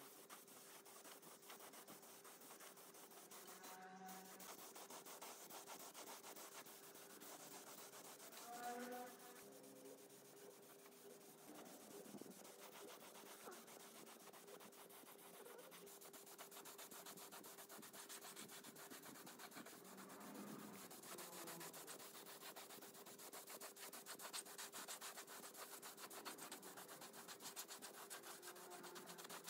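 Faint sanding: rapid, even scraping strokes of abrasive rubbing on a part, with a faint steady hum underneath.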